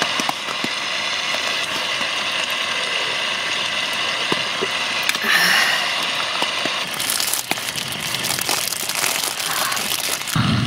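A plastic bag crinkling as it is handled and opened, from about seven seconds in, over a steady hiss of rain on the tent.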